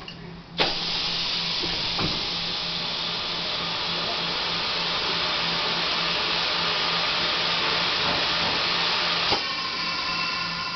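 Macpi heat transfer press giving a steady, loud hiss that starts with a click about half a second in. Near the end a second click cuts it back to a quieter hiss with a steady whine.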